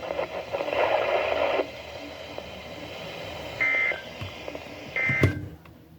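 NOAA weather radio receiver: a broadcast voice through its small speaker stops about one and a half seconds in, leaving a steady static hiss. Two short electronic beeps follow, a little over a second apart, then a click, and the radio's audio cuts off near the end.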